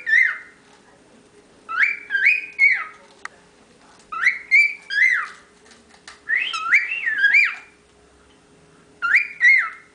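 Male cockatiel whistling its song: short bursts of two or three rising-and-falling whistled notes, repeated about every two seconds with brief pauses between.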